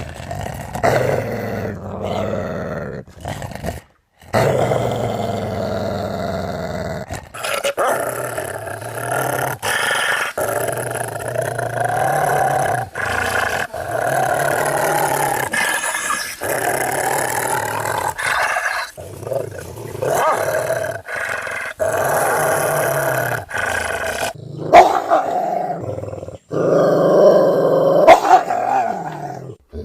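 Large dogs growling: long, sustained growls from several dogs in turn, broken by short gaps and abrupt cuts between them. The loudest, sharpest growls come near the end.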